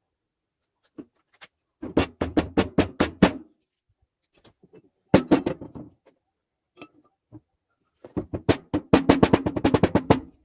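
Rapid hammer taps in three quick runs of about six to seven strikes a second, with the longest run near the end.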